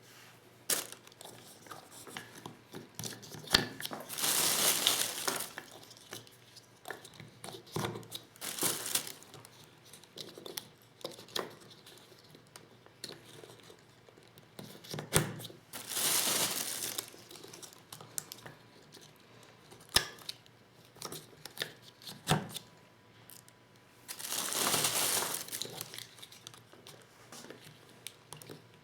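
Hand-reloading 12-gauge shotgun shells with a Lee Loader kit: scattered clicks and knocks of tools and plastic hulls, with three longer rustling swells of noise, each about a second and a half.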